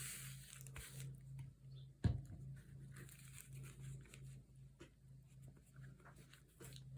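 Faint rustling of fabric and paper being peeled back and handled, with many small ticks and one sharp tap about two seconds in, over a low steady hum.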